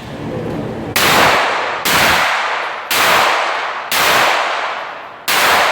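A firearm shot five times in steady succession at target practice, roughly one shot a second starting about a second in, each shot followed by a long fading echo.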